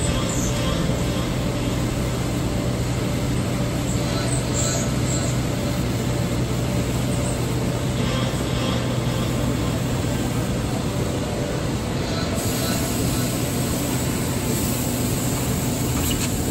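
A multi-head 5-axis CNC wood router running, giving a steady machine noise with a constant low hum.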